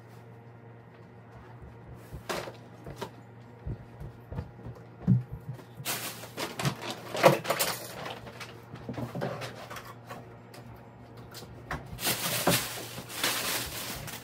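Intermittent rustling with light knocks and clicks of things being handled, heaviest in two spells partway through and near the end, over a low steady hum.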